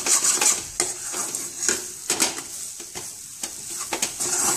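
Metal spoon scraping and stirring a thick methi and besan masala around a stainless steel kadhai, in repeated short strokes, over a faint sizzle of oil. The constant stirring keeps the besan from sticking to the pan as it cooks dry.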